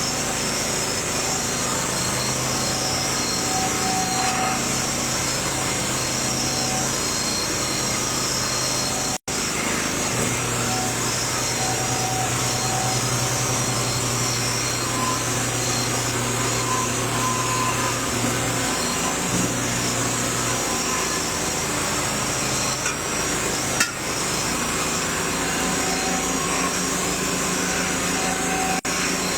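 Steady mechanical running noise with a low hum that cuts in and out, with a single sharp knock about 24 seconds in.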